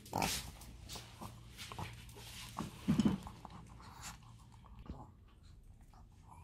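Small dog eating from a ceramic bowl: scattered chewing and bowl-clinking clicks, with a louder thump about three seconds in.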